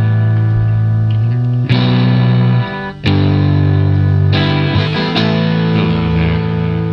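Music: a distorted guitar playing held chords that change every second or so, with a short dip in level just before three seconds in.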